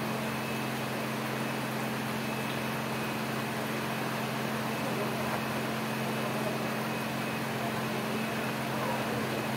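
Heavy rain falling steadily, an even hiss, with a steady low mechanical hum underneath.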